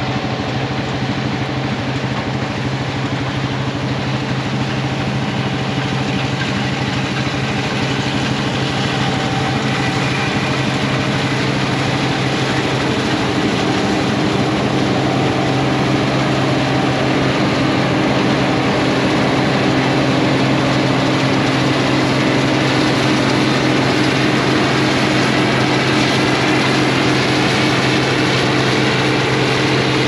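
Case IH 1680 combine running steadily while harvesting soybeans: a continuous heavy engine drone that gets slightly louder partway through.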